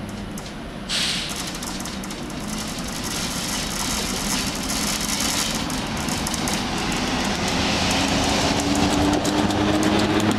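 SNCF BB 7400 electric locomotive hauling a passenger train as it approaches and passes close, its rumble and wheel noise growing steadily louder, with a sudden jump in noise about a second in. A hum rises in pitch over the last few seconds.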